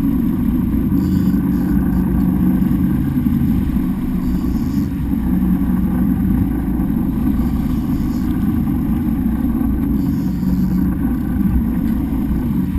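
Fishing boat's engine running steadily: an even, low drone.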